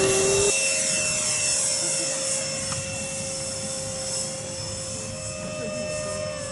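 Radio-controlled model airplane in flight: the steady, high-pitched whine of its motor and propeller, which slowly grows fainter.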